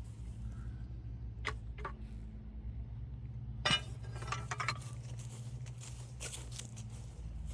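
A handful of sharp metallic clinks and knocks, spread out, over a steady low hum.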